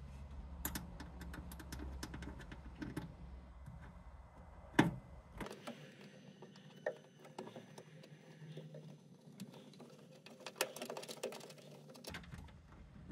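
Small metallic clicks and scrapes of a 2 mm hex key turning out the shipping screws that hold down a 3D printer's print bed. Quick runs of ticking near the start and again near the end, with one sharp click about five seconds in.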